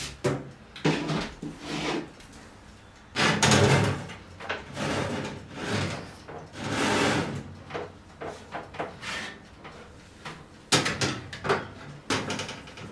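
Metal cake tins and the oven's wire rack sliding, scraping and clattering as the tins are loaded into a gas oven, in a series of separate bursts with a few sharp knocks near the end.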